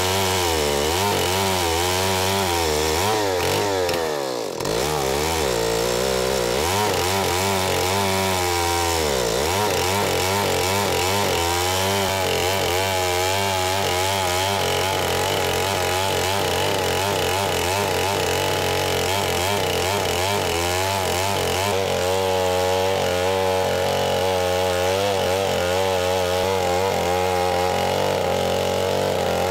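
Two-stroke chainsaw running at full throttle under load, its chain ripping lengthwise through a log in an Alaskan chainsaw mill. The engine note wavers as the saw bogs and recovers in the cut, with a short dip about four seconds in.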